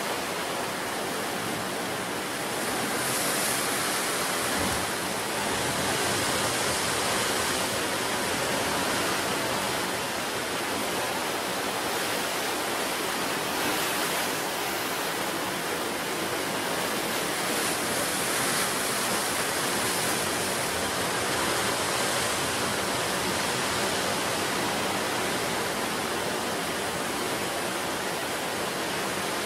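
Ocean surf on a wild beach: a steady rush of breaking and washing waves that swells gently now and then.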